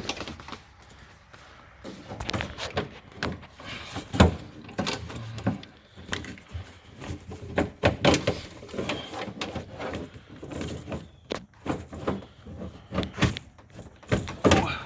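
Irregular knocks, clicks and rattles of a replacement outside door handle assembly being worked into a 2006 Ford Focus door, with one sharp knock about four seconds in.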